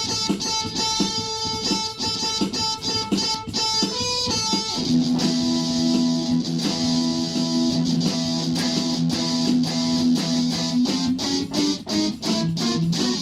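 Guitar-driven rock music: about five seconds in, quick rhythmic chord stabs give way to long held chords.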